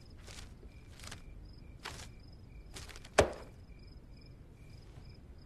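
Crickets chirping steadily, with soft steps about once a second and a single sharp knock a little past three seconds in.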